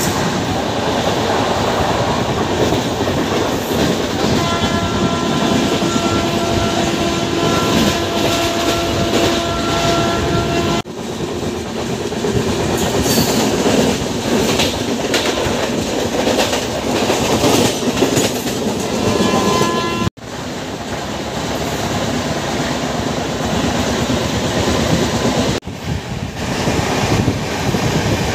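Express train running at speed through a station, heard from on board: a loud rush of wheels clattering over the rails. A few seconds in, the train horn sounds steadily for about six seconds.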